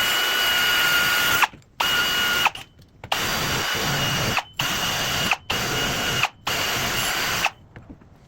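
Small electric power tool with a wire brush scrubbing rust off a metal hand brace: a steady whine and rasp that cuts off sharply and restarts about six times in short bursts, then stops near the end.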